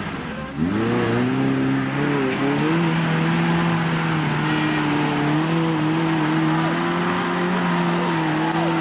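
Suzuki Jimny 4x4 engine revved hard under load as it climbs a rocky slope. About half a second in the revs jump up suddenly, then are held high and fairly steady with small rises and dips.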